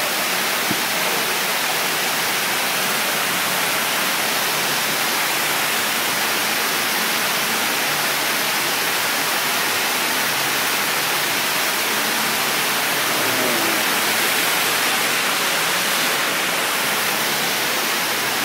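Steady rush of water from a standing-wave surf ride, a thin sheet of pumped water flowing fast over its sloped surface.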